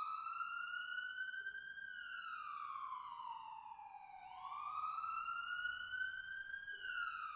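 Siren wailing, its pitch climbing slowly to a peak and sliding back down, twice over.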